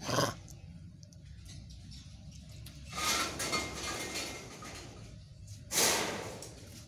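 Bursts of rustling and wire rattling as a macaque moves about its wire cage: a short one at the start, a longer one about three seconds in, and a sharp one a little before the end that fades away.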